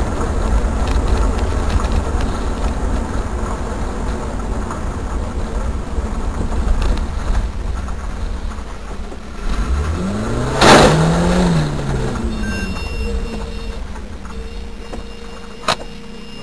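Dashcam recording of a vehicle on the road: steady engine and road noise, then about ten seconds in a loud crash-like bang, with a tone that rises and falls around it. A steady tone follows, and a short sharp click near the end.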